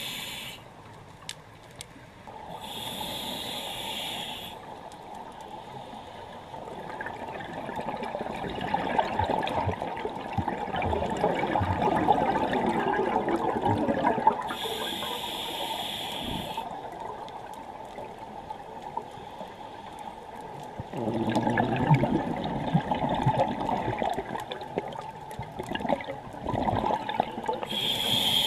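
Scuba diver breathing through a regulator underwater, in slow breaths about twelve seconds apart. Each inhale is a hiss of about two seconds, and each exhale is a long, rumbling, gurgling stream of bubbles lasting several seconds.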